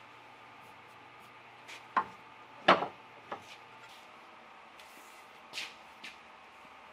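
A few sharp wooden knocks and taps as the hand-carved wooden baseball bat is handled. The loudest comes about two and a half seconds in, two softer ones come near the end, and a low steady hum stops about four seconds in.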